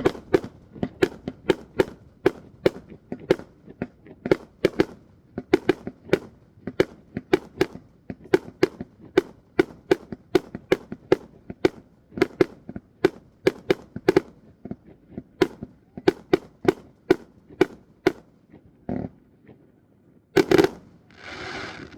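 Aerial firework shells bursting in a fast barrage, about two bangs a second, thinning out in the last few seconds. A single loud bang near the end is followed by a short hiss.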